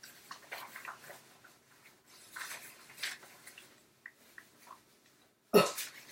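Fabric rustling and shuffling as chino pants are worn and handled, with small soft clicks, then one loud thump near the end.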